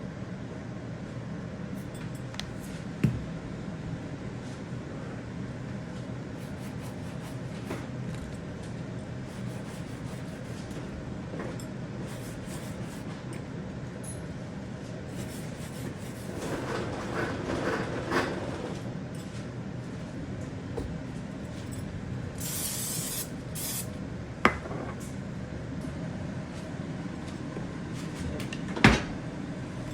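Kitchen exhaust fan running steadily with a low hum, with a few sharp knocks and a short hiss about two-thirds of the way through.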